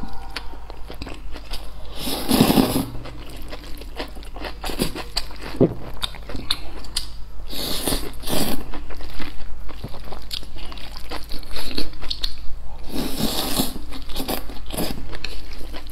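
Close-miked slurping and chewing of wide flat noodles in sauce: three long, loud slurps about five seconds apart, with wet chewing and small mouth clicks between them.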